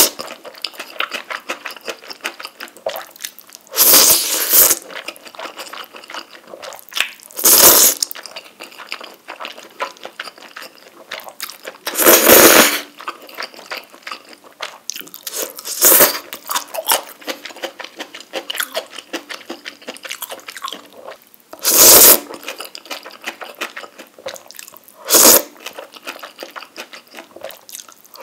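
Close-up eating sounds of a person eating ramen noodles and rice cakes in spicy tteokbokki sauce: six loud slurps of noodles spread through, with wet chewing between them.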